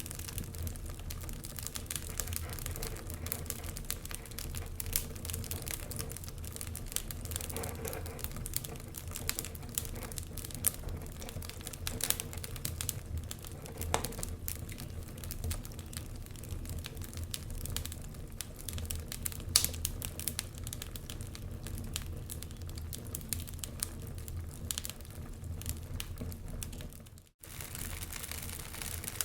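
Wood fire crackling in a fireplace: a dense, irregular run of small pops and snaps, with a steady low wind rumble underneath. The sound cuts out for a moment near the end.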